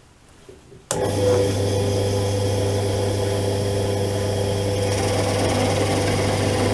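Electric drill press switched on about a second in, its motor running with a steady hum.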